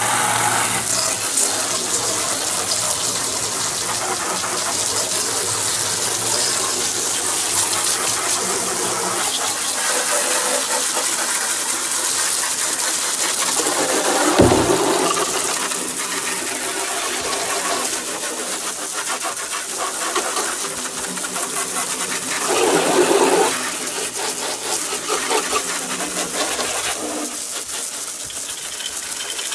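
Garden hose spray gun jetting water onto a plastic waste water container, rinsing off the Cif cream cleaner in a steady hiss and splash. There is a single thump about halfway, and the splashing grows louder briefly later on.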